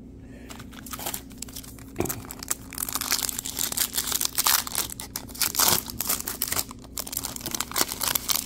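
Foil wrapper of a 2022 Topps Chrome baseball card pack being torn open and crinkled by hand. It is a dense run of crackling that starts about a second in and is loudest around the middle.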